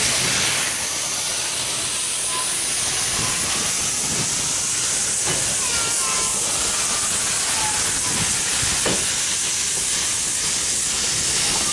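Steady hiss of escaping steam from the W.G. Bagnall 0-6-2 tank locomotive "Superb" as it pulls its narrow-gauge train away, with a few knocks from the passing coaches.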